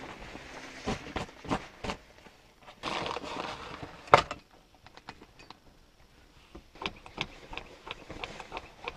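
Camping cookware and stove parts being handled on a wooden table: clicks and clinks of metal, rustling of a stuff sack, and one sharp loud knock about four seconds in.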